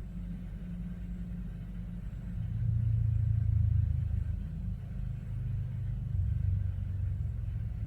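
Man snoring in his sleep: a low snore swells up about two and a half seconds in and lasts about two seconds, with a weaker one about a second and a half later.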